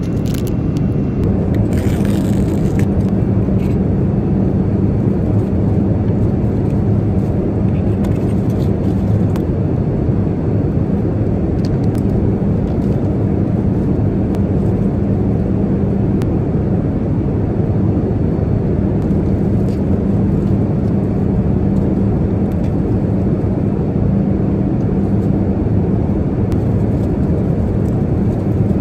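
Airliner cabin noise in flight: a steady roar with a constant low hum. A brief crinkle of plastic cutlery wrap about two seconds in, and a few light clicks of tableware.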